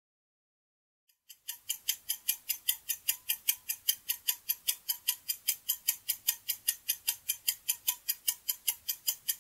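Quiz countdown-timer sound effect: fast, even clock-like ticking, about five ticks a second, starting about a second and a half in.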